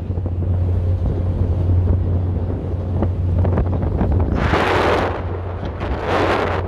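Wind buffeting the microphone on the open deck of a ferry, over the boat's steady low drone. Two stronger gusts rush across the microphone about four and a half and six seconds in.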